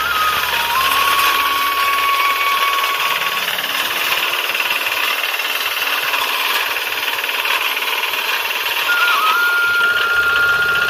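Diesel-engined reaper binder running steadily under load as it cuts and ties wheat, its cutter bar and binding mechanism working. A faint flute-like melody plays over it at the start and again near the end.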